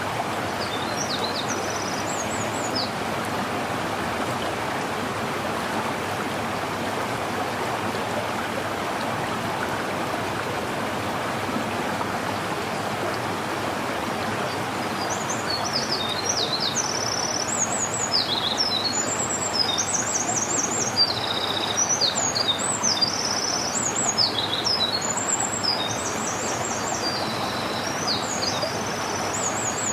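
Steady rushing of a stream, with a small songbird singing high, quick chirping phrases briefly near the start and then over and over through the second half.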